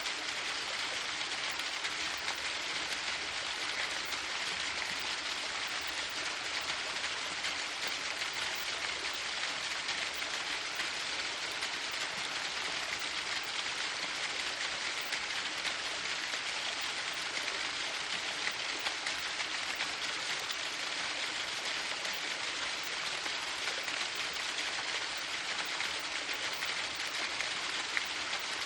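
Waterfall: steady rushing, splashing water, a constant hiss with no break or change.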